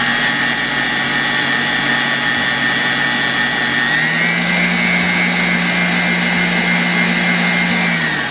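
Electric stand mixer running, beating cake batter in a metal bowl with a steady motor whine and hum. About four seconds in the speed steps up and the pitch rises. Near the end the motor winds down to a stop.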